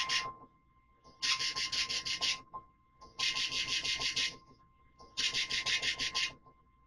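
Weather alert radios sounding their alarm: about one-second bursts of rapid harsh beeps, roughly every two seconds, over the steady 1050 Hz tone of the NOAA Weather Radio warning alarm, which stops near the end. The alarm is set off by the weekly test of the warning system.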